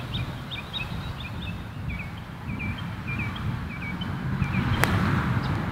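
A single sharp crack of a golf iron striking the ball on a tee shot, about five seconds in. Birds chirp repeatedly and wind rumbles on the microphone throughout.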